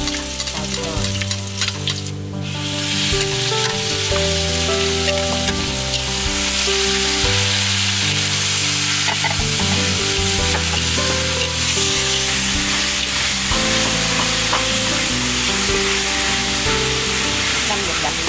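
Food being stir-fried in a hot pan: a steady sizzle with stirring, growing fuller about two seconds in, under background music.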